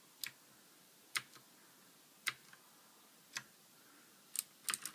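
Single keystrokes on a Ducky Shine 2 mechanical keyboard with clicky Cherry MX Blue switches, about one sharp click a second, then several quick clicks near the end as typing begins.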